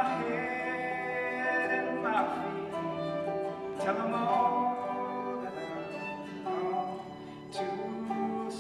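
Acoustic folk ensemble of bowed violin, clawhammer banjo, acoustic guitar and bass clarinet playing together. The pitched notes are held and change every second or two.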